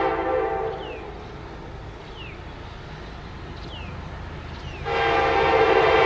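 Diesel locomotive air horn sounding a steady chord. It breaks off about a second in and sounds again, louder, near five seconds, over the steady rumble of freight cars rolling past. A few short, falling squeaks come in the quieter gap.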